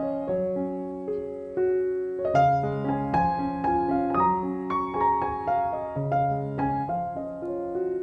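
Background piano music: a gentle melody of struck notes over a repeating bass pattern.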